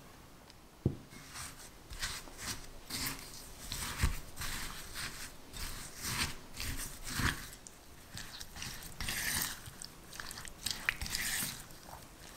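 Silicone spatula stirring sugar-coated kiwi chunks in a glass bowl: a series of gritty, wet, crunchy scraping strokes. There is a sharp knock about a second in.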